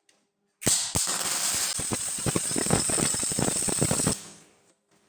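Electric arc welding: the arc strikes under a second in and crackles and hisses steadily for about three and a half seconds as a weld bead is laid, then stops, followed by a few faint ticks.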